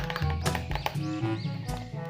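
Background music with a bass line, bright melody notes and regular percussion hits.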